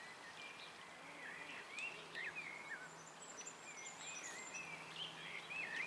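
Faint songbird song: short whistled notes that rise and fall, heard again and again over a steady low hum of outdoor background noise.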